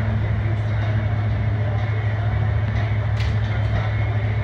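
A motor running with a steady, unchanging low hum.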